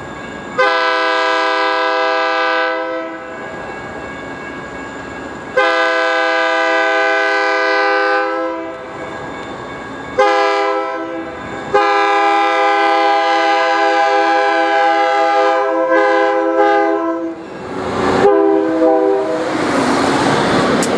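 Horn of a DCTA A-Train Stadler GTW diesel railcar blowing the grade-crossing warning: two long blasts, a short one, and a long one held for about five seconds, then a brief extra toot. Near the end the train's running rumble and wheel noise rise as it reaches the crossing.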